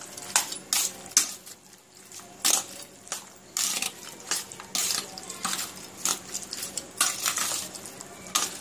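A metal fork scraping and clinking against a stainless steel bowl in irregular strokes, stirring wet chicken pieces coated in curd and spices.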